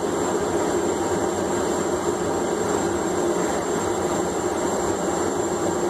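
A forge running with a steady, unbroken noise.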